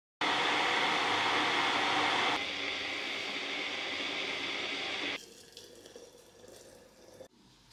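Electric kettle rushing steadily as it heats towards the boil, stopping about five seconds in. Hot water is then poured from it into a ceramic teapot, quieter, with faint clinks.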